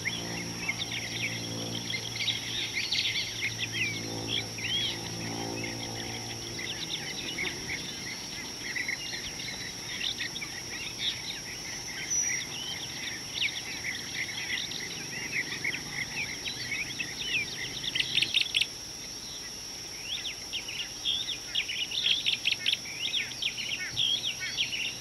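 Chorus of wild birds chirping and whistling at a waterhole, many short calls overlapping, with a few louder rapid runs of chirps after the middle, over a steady high-pitched insect drone. A low hum sits underneath for the first several seconds, then fades out.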